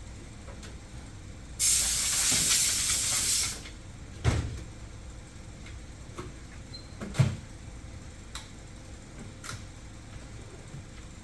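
A loud, steady hiss lasting about two seconds, cutting in and out abruptly, followed by two sharp knocks about three seconds apart and a few faint ticks.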